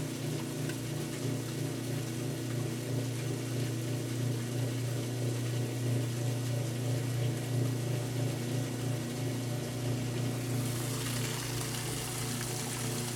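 Kenmore top-load washing machine pumping out with its broken lid switch bypassed: a steady motor-and-pump hum with water rushing. The rush of water grows louder about ten seconds in.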